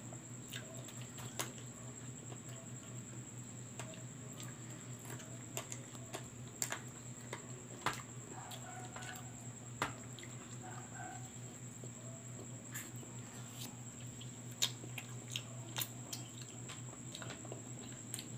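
Close-up eating sounds: wet chewing, lip smacks and small sharp clicks as roast chicken is pulled apart and eaten by hand, over a steady low hum.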